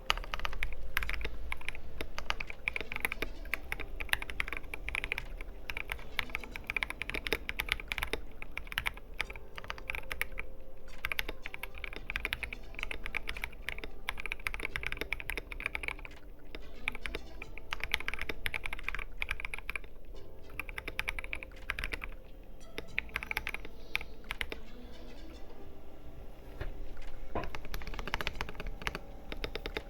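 Typing on an R2 KBD67 Lite gasket-mount custom mechanical keyboard with Durock Koala switches lubed with Krytox 205g0 and filmed, under PBT XDA keycaps. It is a continuous run of keystroke clacks, broken by a few short pauses.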